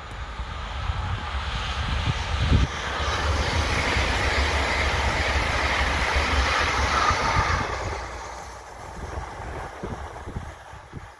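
A train passing at speed: rolling noise builds over the first few seconds, holds loud, then fades away after about eight seconds.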